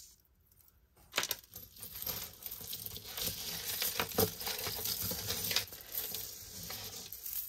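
Metal necklace chains and small metal beads jingling and clinking as they are handled and untangled by hand, starting about a second in.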